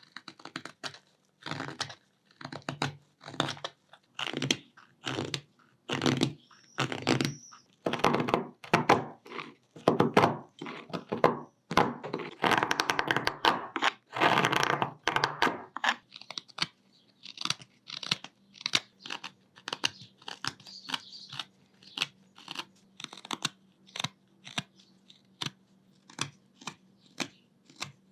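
Hand carving tool cutting into hard wenge wood: a long run of short, separate cutting strokes, about two a second. After the middle the strokes become lighter and quicker, with a faint steady hum underneath.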